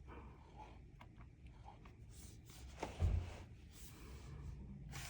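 Faint handling and rustling as the robot vacuum is turned over and moved, with a sharp click and then a dull thump about three seconds in.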